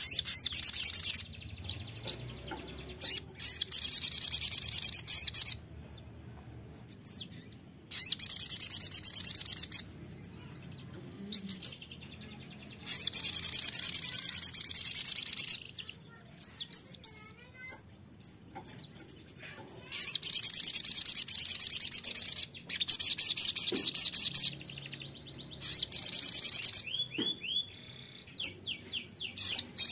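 Male sogon sunbird singing: loud, rapid, high trilled phrases of about two seconds each, repeated every few seconds, with short high chirps between. This is the full song ('nembak') that keepers play as a lure to set other sogon singing.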